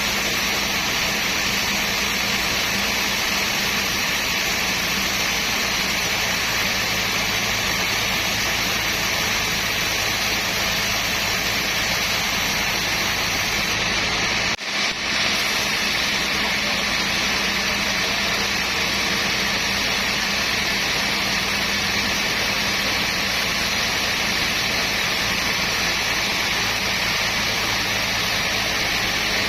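Sawmill machinery running with a steady, even drone, with a brief drop-out about halfway through.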